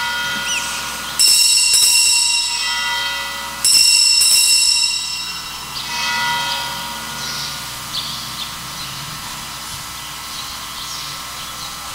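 Altar bells rung twice, about a second in and again near four seconds, each stroke ringing on and dying away: the signal at the elevation of the consecrated host.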